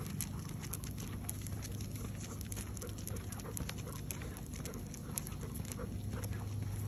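Footsteps of a basset hound and its walker on a concrete sidewalk: many light, irregular clicks over a steady low hum.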